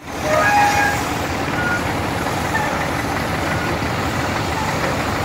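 A small crawler tractor's engine running close by while a steam shovel works behind it: a steady, dense machinery noise, with a few brief squeals in the first second.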